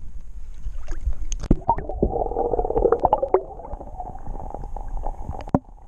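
Water gurgling and sloshing against the side of a kayak as a largemouth bass is let go into the lake, with scattered sharp knocks and clicks. The gurgling is strongest about two to three and a half seconds in, then dies down to a faint steady rush.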